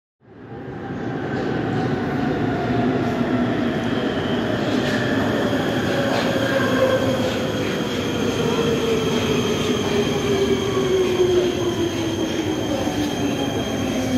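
Prague metro Siemens M1 train running into a station platform: steady rumble of wheels on rail, with an electric whine that falls steadily in pitch as the train slows and faint high squealing from the wheels. The sound fades in just after the start.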